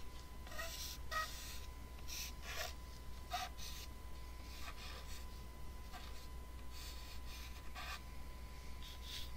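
Felt-tip pen drawing on paper: short scratchy strokes at an uneven pace, roughly one every half second to a second, over a low steady hum.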